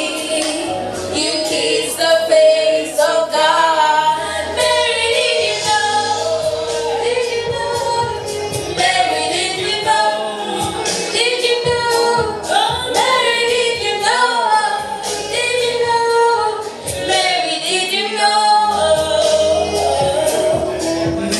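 A woman singing a song live into a microphone, amplified through loudspeakers.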